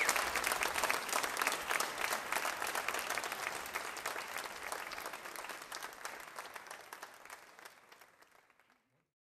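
Audience applauding, a dense patter of many hands clapping that fades away steadily and dies out to silence near the end.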